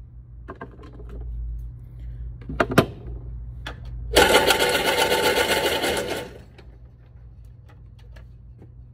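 Shooting range's motorized target carrier running for about two seconds, a fast, even mechanical chatter that starts abruptly and tails off: the paper target being run back to the shooting stall. A couple of sharp knocks come a little before it.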